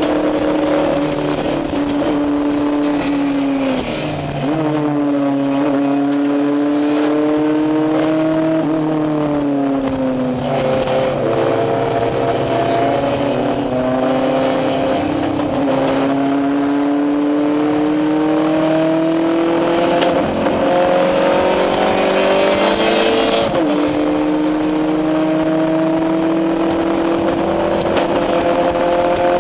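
Honda race car's four-cylinder engine heard from inside the cockpit under hard acceleration, the pitch climbing steadily through each gear and dropping sharply at each shift, about four seconds in, midway and near the end, with a slower fall in revs around the ten-second mark.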